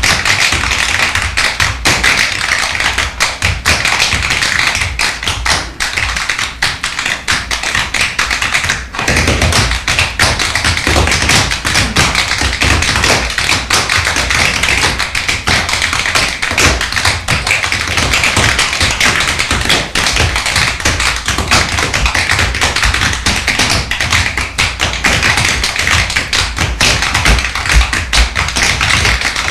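Tap shoes of several dancers striking a stage floor in quick, dense, irregular rhythms of clicks, with an occasional heavier thud.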